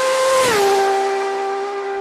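Honda CBX1000 air-cooled inline-six with a modified exhaust passing at full throttle: a high, even engine note that drops sharply in pitch about half a second in as the bike goes by, then holds lower and starts to fade as it pulls away.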